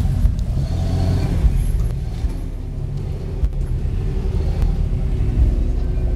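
Off-road vehicle engine running steadily at low revs, a deep rumble.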